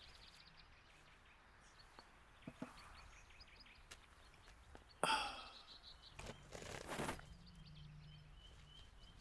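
Faint outdoor ambience with small birds chirping softly, broken about five seconds in by a brief breath-like sound falling in pitch and, a little later, a couple of short rustling bursts.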